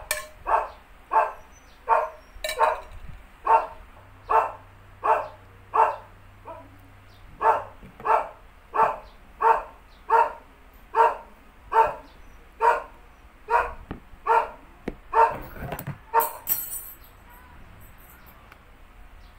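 A dog barking over and over, about two barks a second, with a short pause partway through, stopping near the end.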